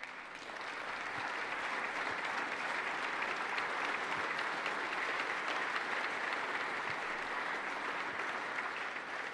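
Steady applause from the assembled legislators in the House chamber, a dense clapping that builds over the first second or two, holds, then dies away near the end.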